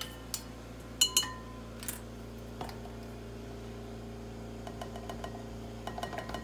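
Metal measuring cup clinking several times against a glass mixing bowl as a cupful of flour is tapped out, sharp knocks with a short ring in the first two seconds. Near the end come faint light taps as the cup scoops more flour from a plastic container.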